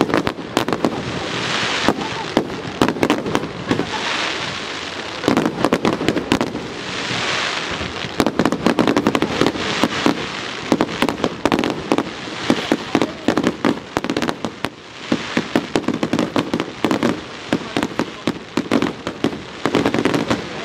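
Aerial fireworks display: a dense, continuous run of sharp bangs from shells launching and bursting, with swells of hiss from the bursts now and then.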